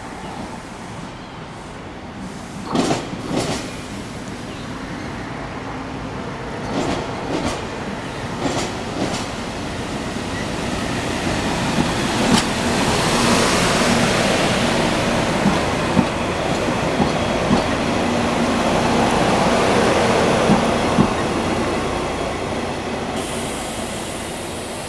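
Two-car Rotem Silverliner V electric multiple-unit commuter train rolling slowly into a station, growing louder as it approaches and passes close by, then easing off. Scattered sharp clacks of wheels on the rails sound throughout, with a steady electric hum while the cars are nearest.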